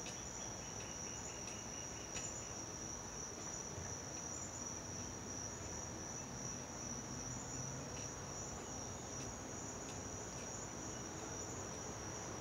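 Insect chorus: a steady, high-pitched trill that runs on without a break.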